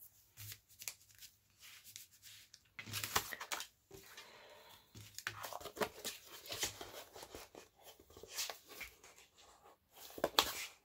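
Paper and cardstock rustling and sliding on a tabletop as sheets are picked up and moved, with scattered light clicks and taps.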